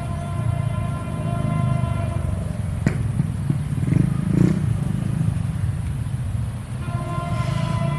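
A CC 201 diesel locomotive horn, wheezy-sounding, sounds a steady chord that fades early and starts again about seven seconds in. In between is a heavy low engine rumble with clatter and a sharp click about three seconds in.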